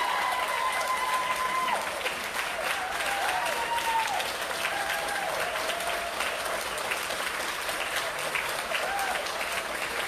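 Audience applauding, with drawn-out whooping and cheering voices over the clapping, loudest in the first few seconds.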